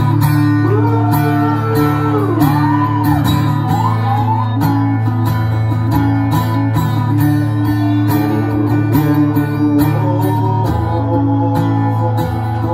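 Guitar music with a steady strummed rhythm over held low notes, and a sliding melody line over the first few seconds.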